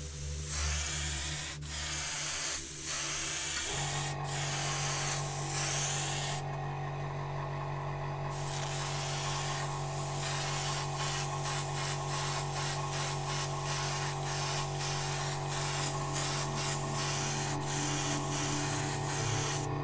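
Airbrush spraying white paint in short strokes: a hiss of air that stops and restarts many times, with one longer pause a few seconds in, over a low steady hum.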